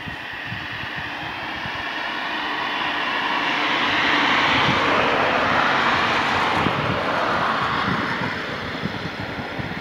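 A vehicle passing by: a broad rushing noise that swells to its loudest about five seconds in, then fades away.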